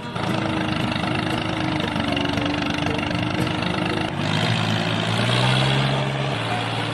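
Small motor running steadily, shifting to a lower hum about four seconds in.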